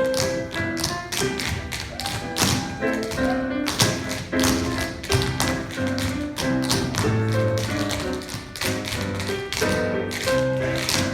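Tap shoes striking a stage floor in quick, irregular bursts of steps over recorded music.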